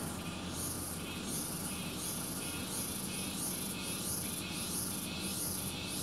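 Insects chirping in a steady, evenly spaced rhythm of high-pitched pulses, about three every two seconds.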